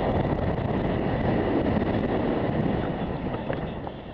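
Wind rushing over a mountain bike's camera microphone along with the rumble of the tyres rolling fast over a dusty dirt singletrack, with a few faint rattling ticks; it eases off near the end.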